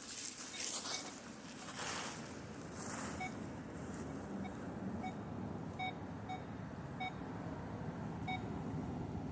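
Metal detector giving short, repeated beeps at the same pitch, irregularly about one to two a second from about three seconds in, over a low steady hum. A few brief scraping sounds come in the first three seconds.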